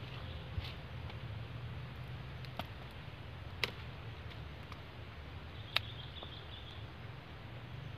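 Scissors snipping papaya flower clusters off the tree: a few sharp, separate clicks, the loudest about three and a half and nearly six seconds in, over a low steady rumble.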